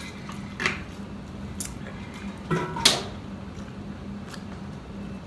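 Eating sounds at a table: a few short, sharp clicks and smacks, the loudest about three seconds in, over a steady low hum.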